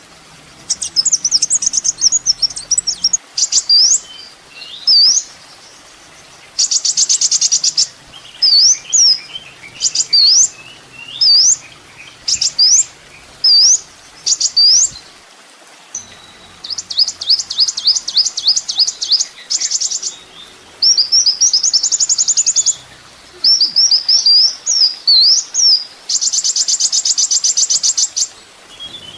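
Kolibri ninja sunbird song from a bird-song training recording. It has high, sharp whistled notes that sweep and hook in pitch, given in quick phrases with short pauses. The phrases alternate with fast, dry trills lasting about a second each.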